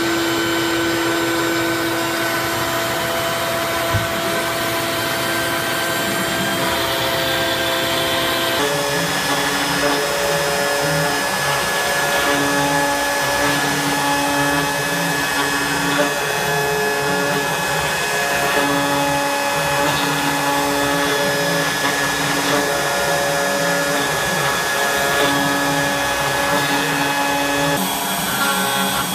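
CNC router carving wood: a steady spindle whine over the rushing noise of its dust-collection vacuum, with extra tones cutting in and out every couple of seconds as the machine moves. The sound shifts abruptly about nine seconds in and again near the end.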